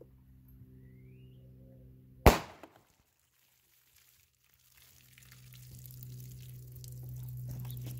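A single 9mm pistol shot from a Smith & Wesson M&P Shield (3.1-inch barrel) firing a Federal HST 150-grain hollow point into water-filled jugs, one sharp crack about two seconds in. A faint steady low hum runs under it and grows louder in the last few seconds.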